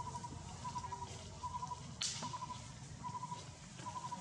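A bird calling over and over: short groups of rapid pulsed notes at one steady pitch, repeating about every three quarters of a second. About two seconds in there is one sharp click.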